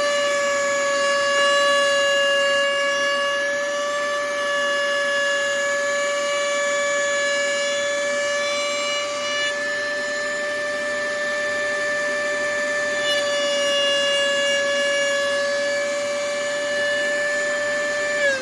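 Table-mounted router motor running at full speed with a steady high whine; near the end its pitch starts to fall as it spins down.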